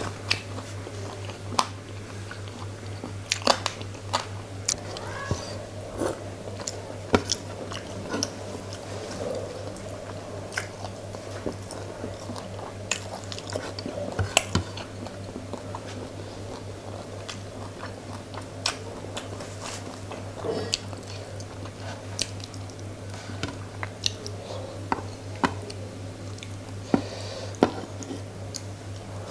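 Close-miked eating with the fingers: many sharp wet clicks and smacks of chewing fish and rice, and fingers squishing curry and rice on a paper plate, over a steady low hum.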